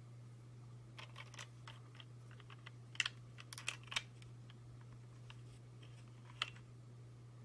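Plastic toy parts of a Transformers Masterpiece Ratchet figure clicking and tapping as they are handled, in a cluster of small clicks about a second in and one more click near the end, over a steady low hum.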